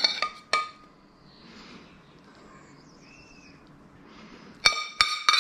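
A metal spoon clinks and scrapes against a stainless steel skillet while morel pan sauce is spooned out. There are a few sharp, ringing clinks at the start, a quiet stretch, and another quick run of clinks near the end.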